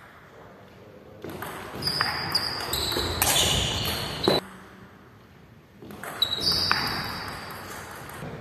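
A few sharp knocks of a table tennis ball and high squeaks of sports shoes on a wooden hall floor, in the echo of a large hall, with a quieter pause in the middle.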